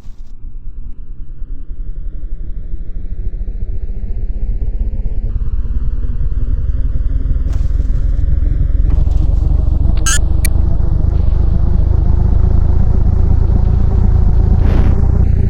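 Loyal ceiling fan running with only one blade, spinning up: a hum that rises steadily in pitch over a heavy low rumble that grows louder, the throb of the badly unbalanced rotor. Two sharp clicks come about ten seconds in, and a knock a little before the end.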